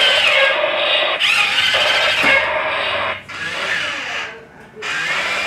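Small electric motor and gearbox of a toy RC quad bike whirring as it drives, in runs of a second or two that stop and start again.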